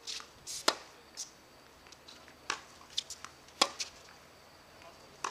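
Tennis balls being struck with rackets and bouncing on a hard court: a string of sharp pops at irregular intervals, the loudest about two-thirds of a second in and again a little past three and a half seconds.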